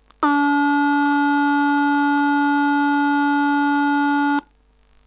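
Simulated speaker output of a 555-timer square-wave oscillator in a metal detector circuit: a steady buzzy tone of about 280 Hz with many overtones. It starts a moment in and cuts off suddenly after about four seconds when the simulation is stopped.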